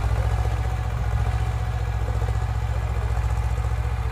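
Swaraj 724 FE tractor's two-cylinder diesel engine running steadily under load with an even, rapid throb as it pulls a tine cultivator through the soil.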